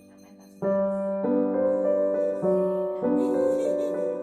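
Piano music. It is faint at first, then a run of notes comes in loudly about half a second in, one every half second or so.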